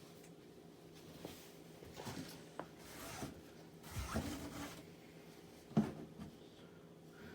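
Casablanca Panama II ceiling fan running on low speed, its motor giving a steady low hum. Irregular short rubbing and clicking sounds come over it, the sharpest about six seconds in.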